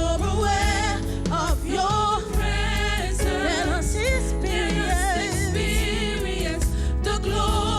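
Gospel worship music: singers with vibrato over keyboard, bass and drums, held at a steady loud level.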